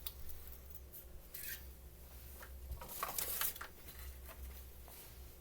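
Faint rubbing and scraping of things being handled, in a few short scuffs, the loudest about halfway through, over a steady low hum.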